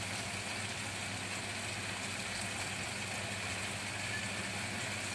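Thai chilli paste cooking in oil in a frying pan, a soft even sizzle over a steady low hum.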